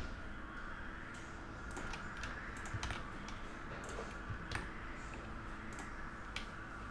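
Computer keyboard being typed on: irregular light key clicks, a few a second.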